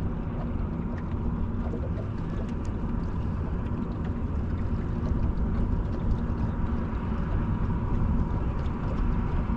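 Steady low rumble and wash of a small fishing boat under way on the river, a motor running under wind and water noise.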